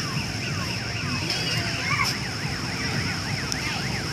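Electronic siren wailing: repeated falling sweeps change about two seconds in to a fast up-and-down yelp, over a steady high-pitched whine and a low rumble of traffic.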